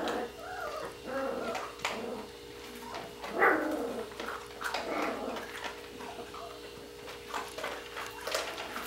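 Border Collie puppies whimpering and giving short, high yips as they play, with the loudest yip about three and a half seconds in.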